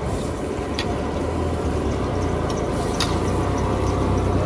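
Big wok of seafood braised pancake strips with squid cooking in liquid: bubbling and sizzling over a steady low rumble, with a few sharp clicks.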